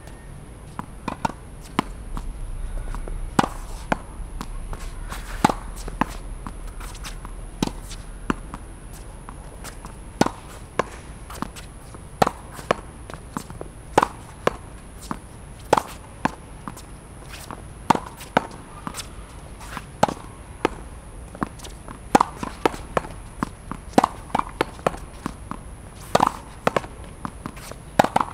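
Tennis ball hit with a racket against a practice wall again and again, a sharp pop about every second, some coming in quick pairs as ball meets racket, wall or ground.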